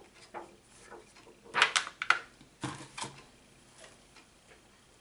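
A run of short clicks and taps from handling things close to the microphone, likely the eyeshadow palette and brush. There are about eight of them, loudest in a cluster from about one and a half to two seconds in.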